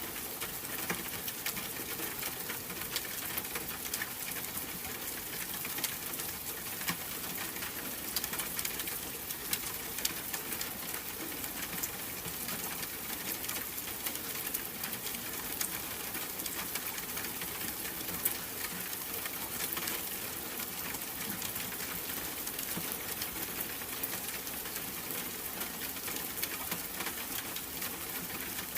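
Steady rain falling, an even hiss of drops with many scattered sharper drip clicks.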